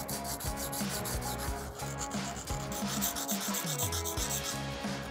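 Small pointed steel tool scraped back and forth across a dry diamond sharpening plate lying flat, a run of quick rasping strokes.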